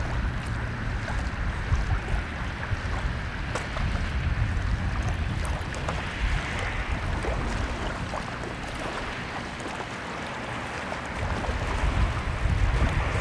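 Wind buffeting the microphone with a low rumble that eases about two-thirds of the way through and builds again near the end. Underneath it, water splashes and laps as the pole-driven paddles dip in and out, with scattered light clicks.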